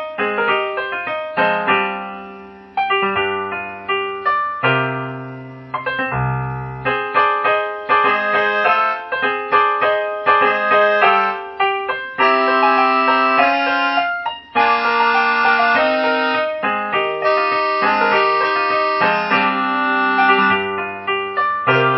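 Background music on a piano-like keyboard: a run of quickly struck notes, each dying away, with longer held chords about halfway through.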